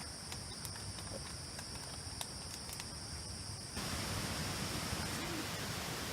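Mountain forest ambience with a steady high-pitched insect drone and a few faint ticks. About four seconds in it cuts abruptly to a louder, steady rushing noise.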